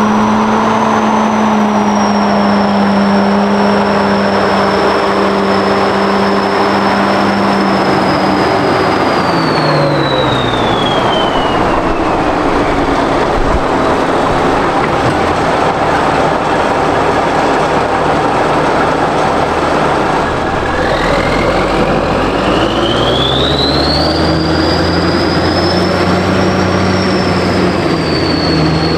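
Kirovets K-700A tractor's V8 turbo diesel running at high revs with a high whine that follows the engine speed. About ten seconds in, the revs and whine drop away to a low run; a little after twenty seconds they climb back up again.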